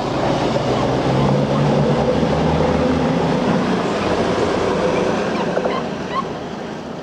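Rough sea surging and breaking against a sea wall, mixed with the rumble of a train approaching along the coastal line, which swells over the first few seconds and then fades. A few short high squeaks near the end.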